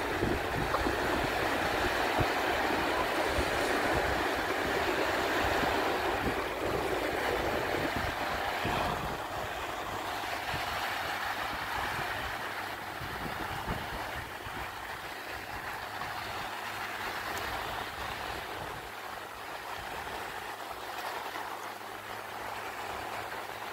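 Steady drone of an ultralight aircraft's engine flying past at a distance, mixed with surf and wind on the microphone. It gets a little quieter about nine seconds in as the aircraft moves away.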